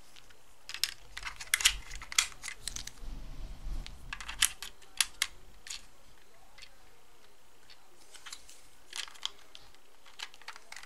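Two AA batteries being pushed into the plastic battery compartment of an RC truck's transmitter: a run of sharp clicks and taps for about five seconds. A few more clicks come near the end as the battery cover is set in place.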